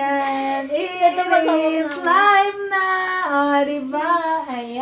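A young female voice singing a melody unaccompanied, holding long notes that step up and down in pitch.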